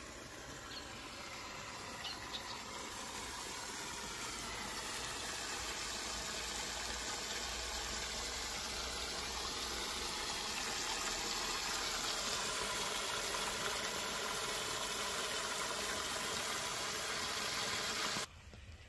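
Water from a garden hose splashing onto wet soil and grass at the base of a young plant. It is a steady rushing sound that grows gradually louder and cuts off suddenly near the end.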